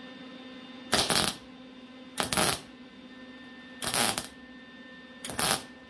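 Welder laying four short tack welds on the truck's sheet steel, each a brief crackling burst about a second or so apart, over a steady hum.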